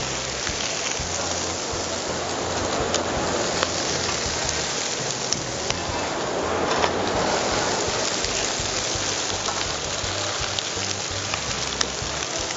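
Burger patties and sliced mushrooms sizzling steadily on the hot steel surface of a four-zone gas plancha, with a few sharp clicks of metal spatulas against the plate.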